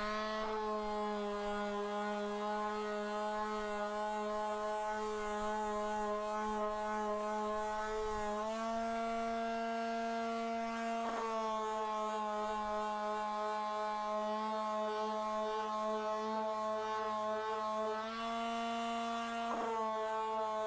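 Electric palm sander spinning up and then running steadily with a humming whine while sanding the glued miter joints of white door casing; its pitch shifts slightly a couple of times.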